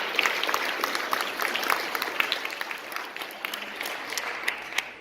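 Audience applauding, many hands clapping at once, thinning out somewhat toward the end.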